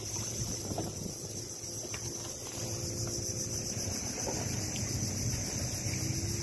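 Wind buffeting the microphone and water moving around a small boat, over a steady high drone of insects.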